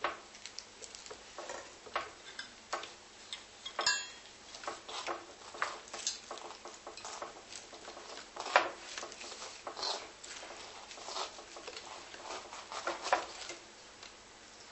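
Irregular light clicks and knocks of small hard objects being handled, with a brief ringing clink about four seconds in and a sharper knock about eight and a half seconds in.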